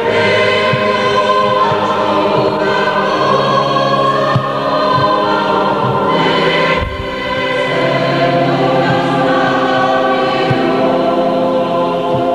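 Mixed choir singing a sacred polyphonic piece in sustained chords that shift from phrase to phrase, with a brief dip between phrases about seven seconds in.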